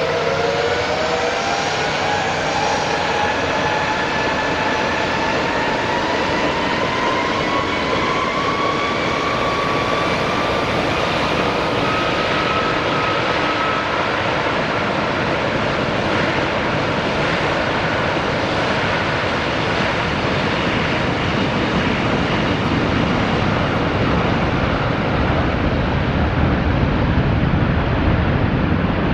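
Jet airliner engines spooling up to takeoff power: a whine that rises in pitch over roughly the first twelve seconds, over a steady loud jet noise. The deep rumble grows near the end.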